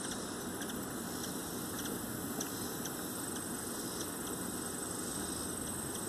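Steady outdoor background noise with scattered faint, short high ticks or chirps and a thin steady high tone above them.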